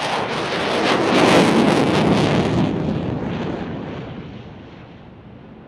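Saab JAS 39 Gripen fighter's single jet engine in afterburner on a close pass: the jet noise swells to a peak about a second and a half in, then fades and grows duller as the aircraft climbs away.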